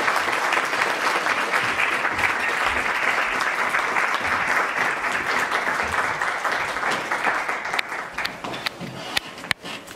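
Audience applauding, thinning out over the last two seconds into a few scattered claps.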